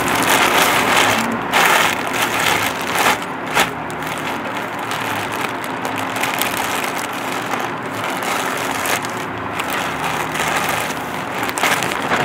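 Thin plastic mailer bag crinkling and rustling as it is handled and torn open, with sharper crackles every few seconds.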